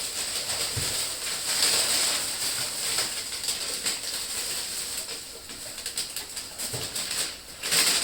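Rustling and crinkling of packaging as kit parts are handled and unwrapped, an uneven hiss with faint scattered knocks.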